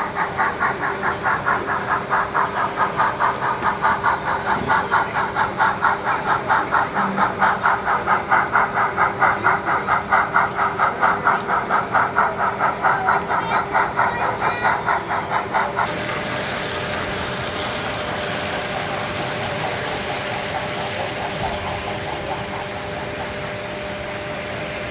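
Sound-equipped Denver & Rio Grande Western narrow-gauge model steam locomotive chuffing in an even rhythm of about three beats a second. About 16 seconds in, this cuts to a steady noise as a string of model covered hopper cars rolls past.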